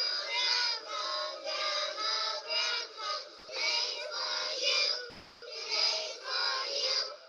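A class of kindergarten children singing together in unison, in short phrases with brief breaks between them.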